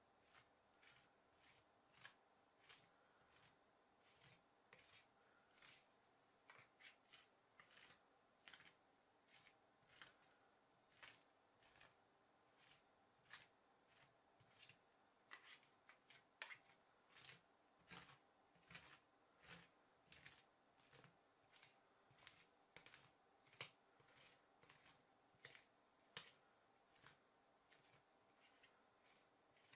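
Plastic spatula scraping and spreading ice cream mixture across the frozen metal plate of an ice cream roll maker. It comes as faint, short scraping strokes, irregular, about one or two a second.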